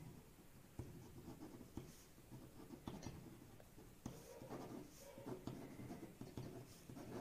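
Ballpoint pen writing on a sheet of paper, faint irregular scratching strokes as the words are written out.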